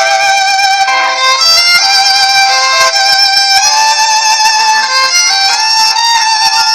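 Background music led by a violin playing a slow melody of held notes with vibrato.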